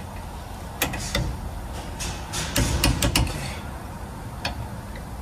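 Click-type torque wrench tightening rear brake caliper bolts to 65 ft-lb: sharp metallic clicks as the wrench reaches torque and breaks over, most of them bunched about two and a half to three seconds in, with the clink of the wrench moved between bolts.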